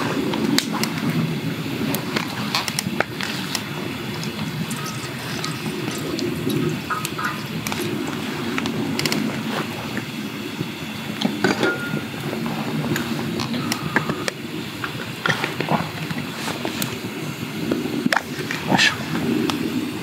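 Wood campfire crackling, with scattered sharp pops and snaps over a steady low rumble.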